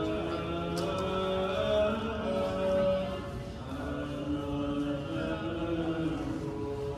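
Choral chanting: several voices holding long notes that shift slowly in pitch.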